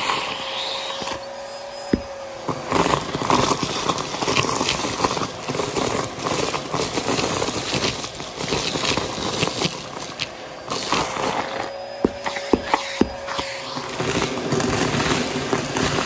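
Vacuum cleaner running, its hose nozzle sucking sequins, confetti and glitter out of carpet, with many small clicks and rattles as pieces are pulled up the hose. The motor's whine shifts slightly in pitch twice as the nozzle digs into the pile.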